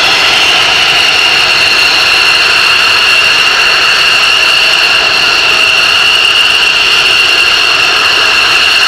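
F-16 fighter jets' Pratt & Whitney F100 turbofans running at low power while taxiing. A loud, steady high-pitched turbine whine over a rushing roar, neither rising nor falling.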